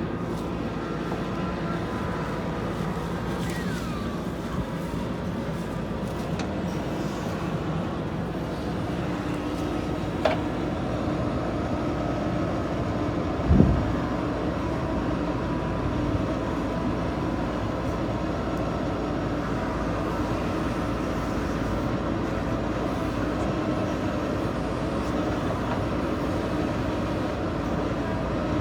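JCB backhoe loader's diesel engine running steadily at working speed. A sharp metallic clank comes about ten seconds in, and a heavier thud a few seconds later.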